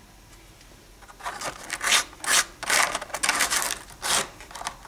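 Plaster rock casting rubbed back and forth on a sheet of sandpaper, shaping its edge to fit against the next rock. A run of quick, rough scraping strokes starts about a second in.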